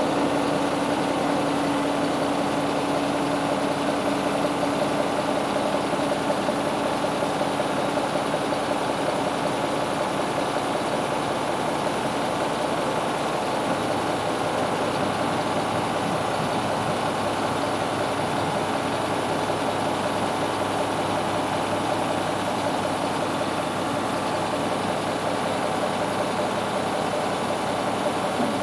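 Diesel engine of a 1986 Freightliner C112 dump truck running steadily at idle while it powers the hydraulic hoist raising the dump body. Its tone shifts slightly about halfway through.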